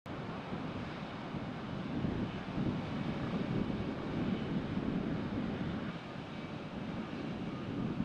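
Steady low rumble of engine noise from a jet airliner being sprayed by a de-icing truck, with no clear pitch and no sharp events.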